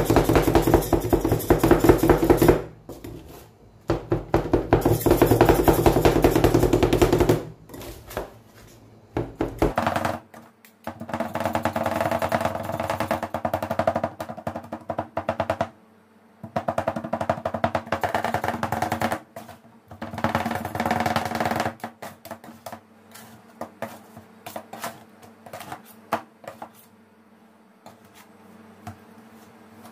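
Two metal spatulas chopping an ice cream mixture on a steel cold plate: fast, dense clacking of blades on metal in several bursts of a few seconds each. In the last part the blows thin out to scattered taps and scraping as the mixture is gathered and spread.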